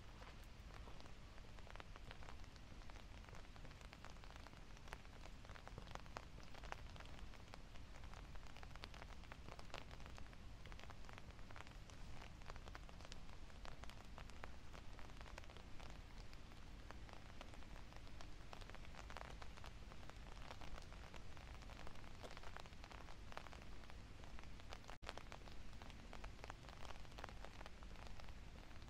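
Light rain pattering in small irregular drops, over a low steady rumble.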